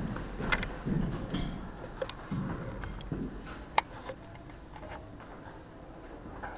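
Footsteps of heeled shoes walking and coming to a stop. They are soft thuds with a few sharp clicks, then fade to a quiet room.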